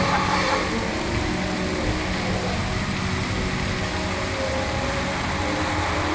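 Steady rushing background noise with a faint low hum: the ambient sound of the indoor boat ride, with no distinct event standing out.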